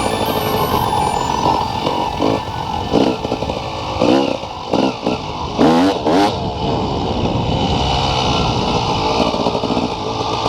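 Motorcycle engine running and revving, its pitch rising and falling several times around the middle.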